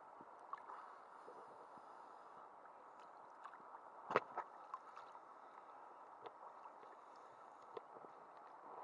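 Small sea waves lapping and sloshing against a waterproof camera housing at the water's surface, a muffled steady wash with scattered little clicks and a sharper knock about four seconds in.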